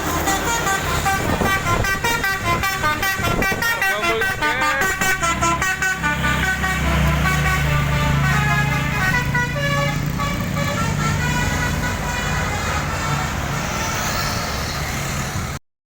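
Bus telolet basuri horn, an electric multi-trumpet horn, playing a quick melody of changing notes. The bus's engine comes in loudly about six seconds in, under the horn, and everything cuts off suddenly near the end.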